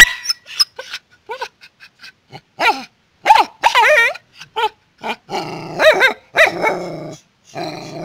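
Small dog barking in short, separate barks, with a wavering call near the middle. This is followed by about two seconds of rough, grumbling growl-barking. The dog is vocalising out of eagerness to go.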